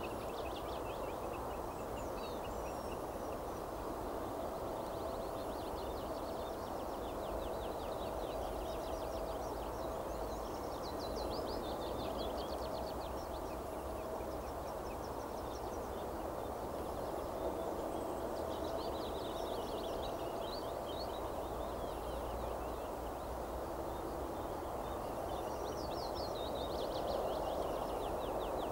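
Small songbirds singing high, fast trilled phrases that come again every few seconds, over a steady low background noise.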